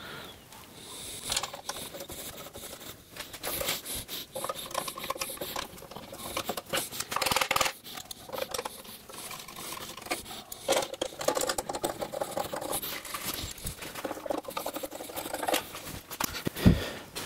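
A hand screwdriver driving 1/4-20 machine screws into the tapped holes of a steel plate: a run of short clicks and metal scrapes as the blade turns in the screw slots, with a louder knock near the end.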